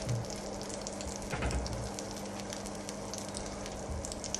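Egg-soaked French toast frying in melted margarine in a pan on low heat, with a steady sizzle and fine crackle.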